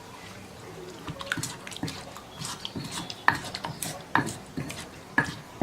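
Kitchen handling sounds: a run of small clicks and knocks, with a louder sharp knock about once a second in the second half, among dishes and dripping water.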